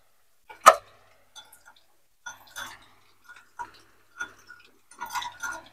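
Metal spoon stirring sauce in a ceramic bowl, clinking against the bowl: one sharper clink about half a second in, then light, irregular ticks.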